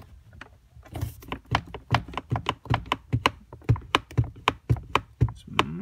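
Plastic center console of a 2006 Honda Civic Si rocked back and forth against its retaining clips, knocking and clicking about four times a second. Something is still holding the console in place.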